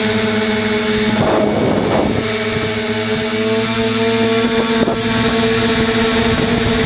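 Bambucopter Bluebird tricopter's three electric motors and propellers whining steadily as heard from the onboard camera, with a brief noisy rush about a second in, after which the pitch sits slightly higher. A short click near the end.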